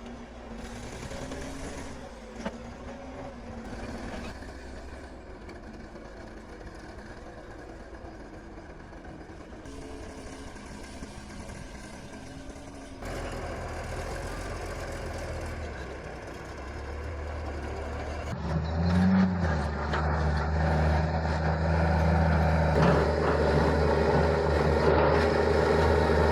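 Heavy diesel earthmoving machinery running and working, the sound changing abruptly twice. From about 18 seconds in, a louder engine takes over, revving up briefly and then running steadily under load.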